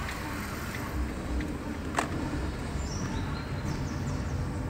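Steady low rumble of a car heard from inside the cabin, with one sharp click about two seconds in and a few faint high chirps in the second half.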